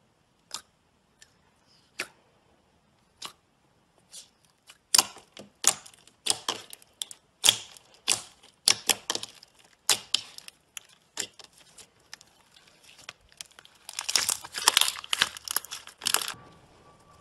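Clear slime being squeezed, pressed and folded by hand, giving off sharp pops and crackles. They are scattered at first, come quickly from about five seconds in, and are densest near the end.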